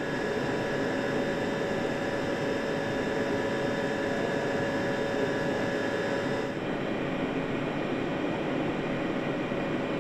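A BMW TwinPower Turbo petrol engine running at a steady speed on a test-cell stand: a constant running noise with several held whining tones, turning a little duller about six and a half seconds in.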